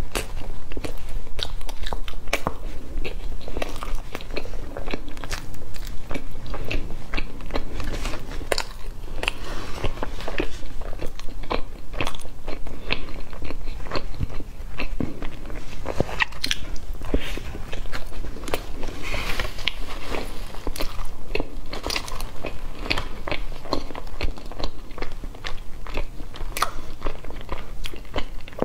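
Close-miked biting and chewing of a chocolate-glazed doughnut, heard as a steady run of sharp wet mouth clicks and soft crunching.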